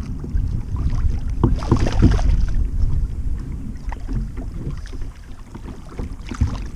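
A hooked fish thrashing and splashing at the water's surface beside a kayak while a hand reaches in to grab it, over a steady low wind rumble on the microphone. The strongest splashing comes from about one and a half to two and a half seconds in, with another splash near the end.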